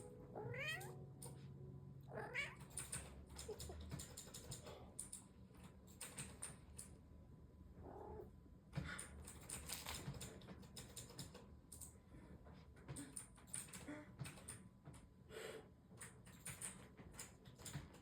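A kitten meowing faintly: two rising meows in the first few seconds, then fainter short calls, among many small clicks and taps.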